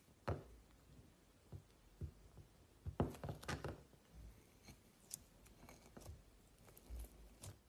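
Clear slime mixed with colourful confetti being pressed and pulled apart by fingers in a glass bowl: faint, scattered sticky clicks and small pops, with a cluster of louder ones about three seconds in.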